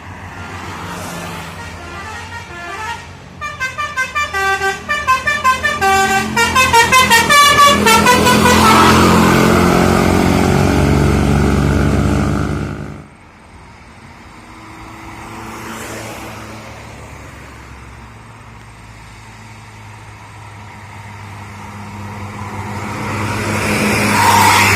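Bus telolet basuri horn playing a quick tune of short notes that step up and down, as the bus passes close with its engine running loudly. The sound drops away suddenly about thirteen seconds in, and another heavy vehicle grows louder near the end.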